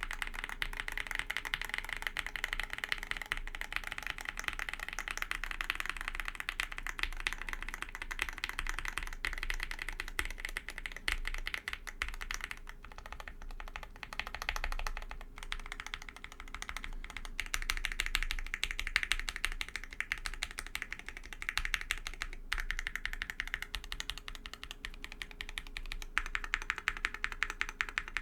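Fast, continuous key presses on a TOFU65 aluminum-case mechanical keyboard with Everglide Aqua King v3 linear switches on 67g springs and PBT keycaps, working the modifier keys. Dense clacking, with brief let-ups around a third and halfway through.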